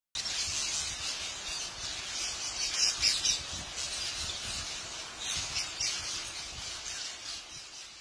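A large flock of rose-ringed parakeets calling all at once, a dense high-pitched chorus, loudest about three seconds in and easing a little toward the end.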